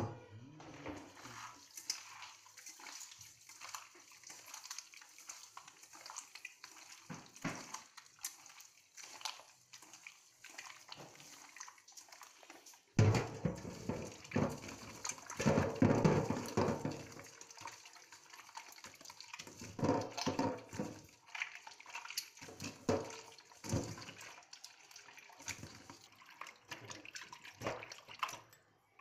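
Hands kneading and squeezing raw goat intestines with salt in a steel bowl of water, giving irregular wet squelching and splashing. It is quieter at first and grows louder and busier about halfway through.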